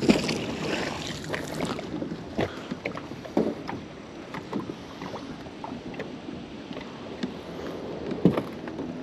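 Water splashing and lapping around a small boat, with scattered small knocks and clicks, as a fishing magnet is hauled back in on its rope. The splashing is loudest in the first couple of seconds, then settles.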